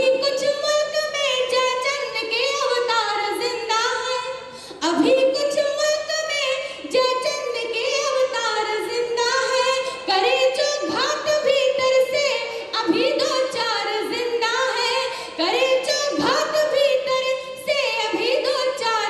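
A young woman singing solo into a handheld microphone: a melodic line of long held notes in phrases, with a brief pause about five seconds in.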